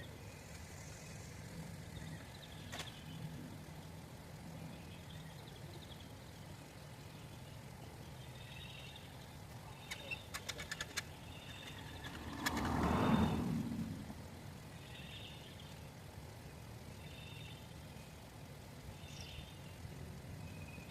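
Low, steady engine hum, with short high chirps every couple of seconds. A few quick clicks come about ten seconds in, then a louder vehicle noise swells up and fades away around thirteen seconds.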